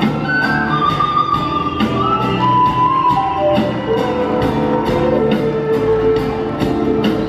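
Live Andean-rock band playing an instrumental passage: drums keeping a steady beat about twice a second under bass and guitar, with held notes from a wind instrument carrying the melody.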